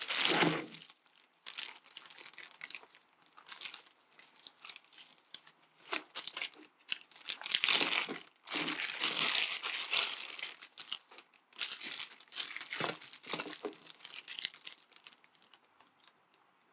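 Plastic wrapping crinkling and rustling in irregular bursts as wrapped tools are handled, with a few light clicks among them.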